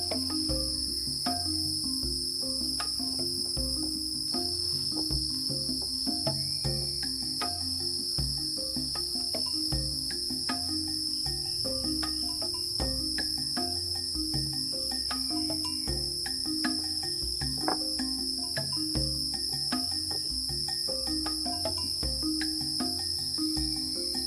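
A steady, high-pitched chorus of night insects, crickets among them, droning without a break. Underneath it runs a low, repeating pulsing pattern, with scattered sharp clicks.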